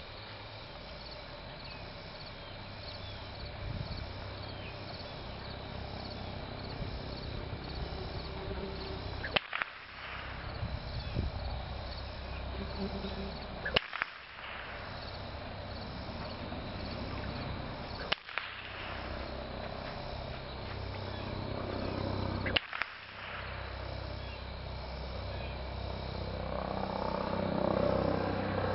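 Field insects, crickets or katydids, trilling steadily under a low outdoor rumble. Four sharp clicks, each followed by a brief dropout, come about four and a half seconds apart, and a rising rumble builds near the end.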